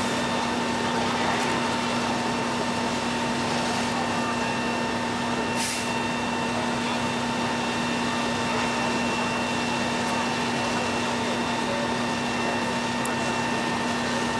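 Heavy diesel machinery running at a steady speed: a constant engine drone with a steady hum over a wash of noise. A short hiss comes about six seconds in.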